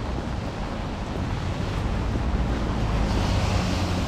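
Rainy city street: the steady hiss of rain and tyres on wet road over a low traffic rumble, growing louder near the end.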